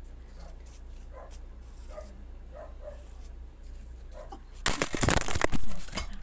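Several faint, short whimpers from a dog. About four and a half seconds in, they are drowned by a loud rubbing and rustling on the phone's microphone as the phone is handled and covered.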